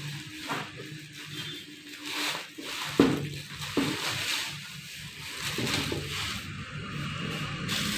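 Bubble wrap and a plastic sleeve rustling and crinkling as a tripod is unwrapped by hand, with two sharp knocks about three seconds in, the first the loudest.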